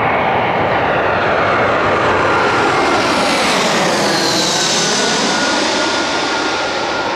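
Airbus A320 twin jet engines running at approach power as the airliner comes in to land, a loud steady jet noise with a high whine that dips in pitch about halfway through as the aircraft passes.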